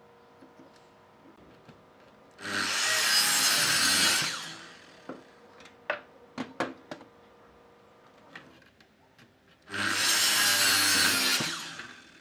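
Makita miter saw motor starting and its blade cutting into a softwood board, twice, each cut lasting about two seconds and ending as the motor winds down; a few sharp knocks come between the two cuts.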